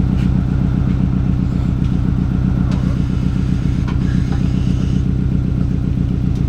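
2013 Subaru WRX's turbocharged 2.5-litre flat-four idling steadily through an Invidia N1 single-exit race exhaust, a low, evenly pulsing sound.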